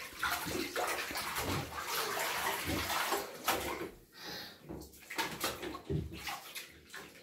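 Bathtub water splashing and sloshing as two children move about and play in it, in irregular splashes that grow quieter in the second half.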